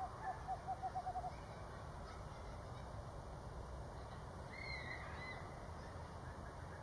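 Screech-owl hooting: a run of short, low notes that speed up and run together, ending about a second in. About four and a half seconds in, a brief higher wavering call, over a steady low background rumble.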